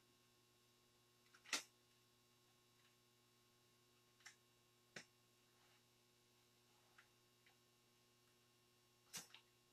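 Near silence: faint steady room hum with a few soft clicks, the strongest about a second and a half in and two more near the end.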